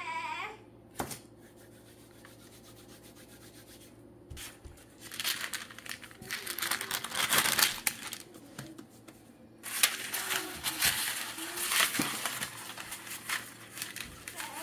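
Parchment paper crinkling and rustling as it is handled and a shaped ball of sourdough is set down on it, in two crackly stretches starting about five seconds in, with a short break near the middle.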